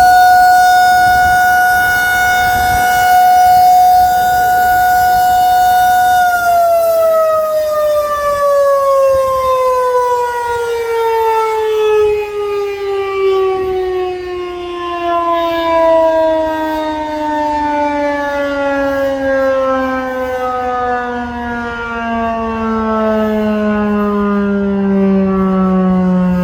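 Federal Signal 2001-SRN electromechanical siren sounding a steady tone at full speed during a siren test. About six seconds in it is switched off and winds down, its pitch falling slowly and evenly to a low tone by the end.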